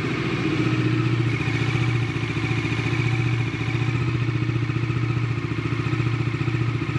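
Bajaj Dominar 400's single-cylinder engine idling steadily while it warms up after a cold start, with a jingling, clattery 'chhan-chhan' noise in it that the owner points out, its first service still due.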